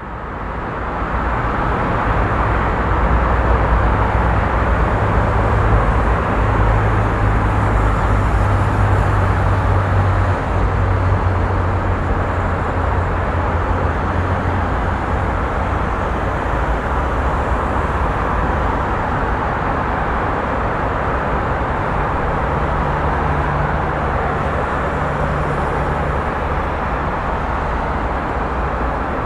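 New York City street traffic: a steady wash of cars and engines with a deep low rumble, heavier in the first half. It fades in at the start.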